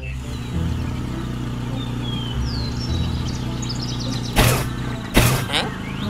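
Cartoon car engine running steadily, with a few bird chirps over it and two sudden bangs about four and a half and five seconds in, as the car backfires.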